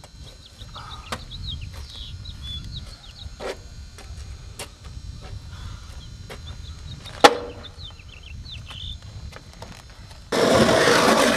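Small birds chirping over a low outdoor rumble, with scattered light clicks. About seven seconds in, a skateboard knocks sharply against the concrete wall. Near the end, skateboard wheels start rolling loudly over rough concrete.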